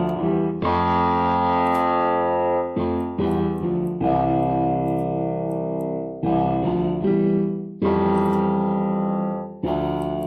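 Piano-voiced keyboard chords from a Roland arranger keyboard, each held for a second or two before the next comes in, running through a multiband compressor and limiter.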